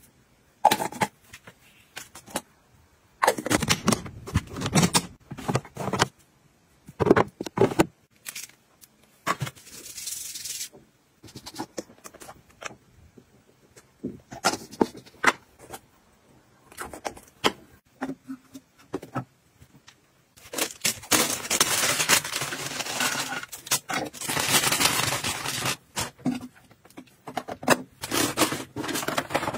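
Hands handling plastic cosmetic jars and packaging: a jar lid twisted and clicked, scattered taps and scrapes, then several seconds of continuous rustling about two-thirds of the way through.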